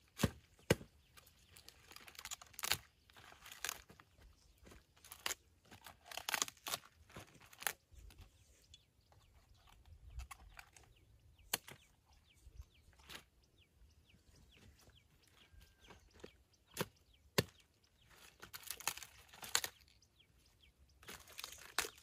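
Irregular sharp snaps and short crackling, tearing sounds, as of leaves and stalks being torn and broken by hand, with pauses between.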